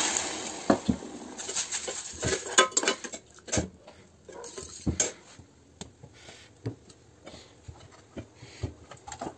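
Hissing sizzle of water hitting hot roasted flour for halwa in a steel pan, fading away over the first second. Then scattered knocks, scrapes and clicks of a metal slotted spoon against the steel pan as the mixture is stirred.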